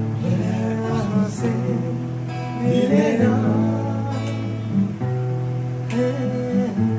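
Acoustic guitar strummed and played in chords, with a man's voice singing along at times.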